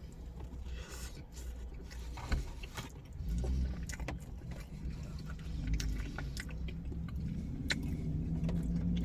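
A low, steady vehicle rumble that grows louder about three seconds in, with scattered small clicks and scrapes over it.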